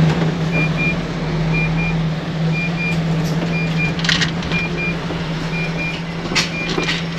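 Diesel engine of a MAN tractor unit running with a steady low hum while its reversing alarm sounds pairs of short high beeps about once a second. A couple of short sharp knocks come near the middle and near the end.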